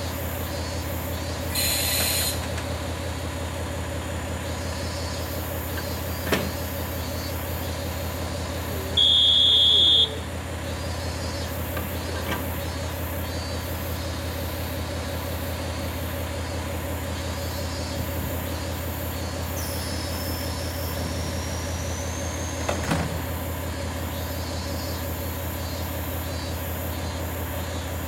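KiHa 40-series diesel railcar idling at the platform, its engine a steady low hum. A loud high beep sounds for about a second some nine seconds in, with a short burst about two seconds in and a few sharp clicks along the way.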